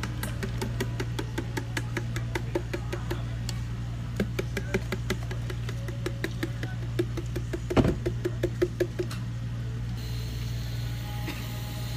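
Steady low machine hum with light, evenly spaced ticking, and a louder knock about eight seconds in as thick blended smoothie is poured from the blender jar. Near the end, whipped cream hisses from a cream dispenser.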